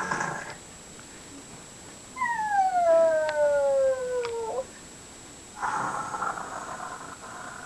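A young child's pretend snoring. A rough, raspy in-breath is followed by a long, clear whine on the out-breath that slides steadily down in pitch, then another raspy in-breath near the end.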